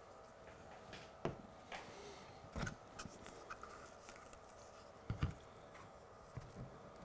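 Faint handling of a small tin of flux and a reel of solder wire on a wooden bench: scattered light clicks and taps, with the loudest, a double knock, about five seconds in.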